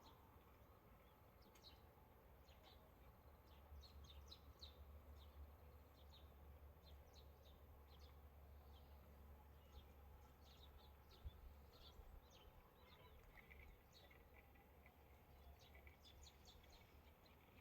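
Faint, scattered bird chirps over a low steady hum, otherwise near silence.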